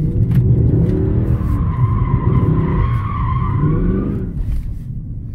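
Mercedes C63 AMG's 6.2-litre M156 V8 revving hard, its pitch rising and falling, while the rear tyres spin and squeal for about three seconds, heard from inside the cabin. It is wheelspin on tyres that still need running in.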